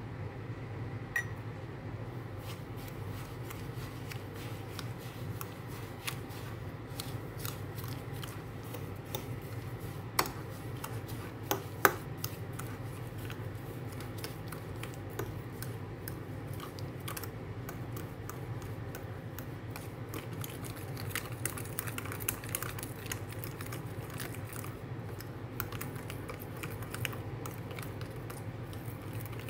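Metal fork stirring sugar into mashed banana in a ceramic bowl: a continuous run of light clicks and scrapes against the bowl, with three sharper clinks in the middle, over a steady low hum.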